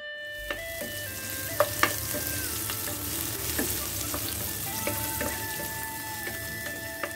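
Sliced onions and green chillies sizzling in hot oil in a non-stick pan. A wooden spatula stirs them and knocks sharply against the pan several times. The sizzling starts abruptly just after the start and then holds steady.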